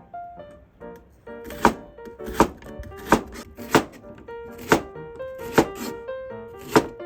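Knife chopping on a cutting board: about eight separate, unhurried chops, spaced unevenly, with background music.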